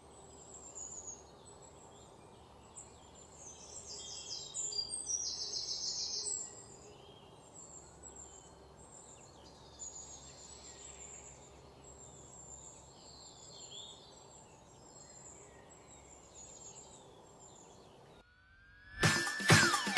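Faint birds chirping and twittering in the background, with a louder spell of chirping about four to six seconds in. It cuts to silence near the end, and then loud electronic music starts.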